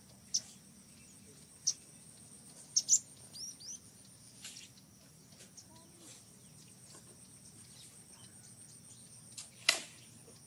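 Forest background with a steady high insect drone and short, shrill chirps every second or two, the loudest one near the end.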